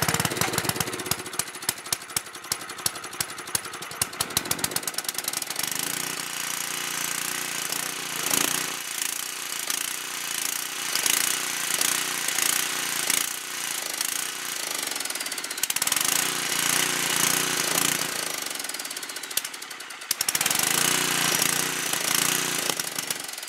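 Tecumseh 10 hp single-cylinder engine on a Homelite 5000-watt generator running just after starting, its speed surging up and down and sagging briefly about twenty seconds in before picking up again. The owner takes the uneven running as a sign that the idle circuit of the carburettor is still not right.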